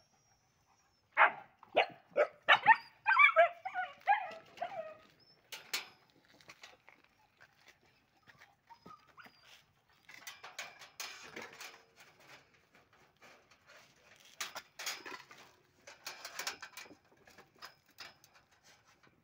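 Puppies barking: a quick run of sharp barks about a second in that turns into yelps for a couple of seconds. Softer scuffling noises follow later.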